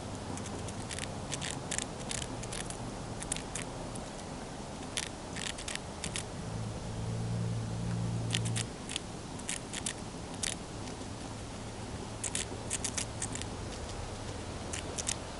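A chipmunk gnawing a crunchy snack stick: short bursts of sharp, rapid crunching clicks every second or two. Underneath is a low steady hum that gets louder for a couple of seconds midway.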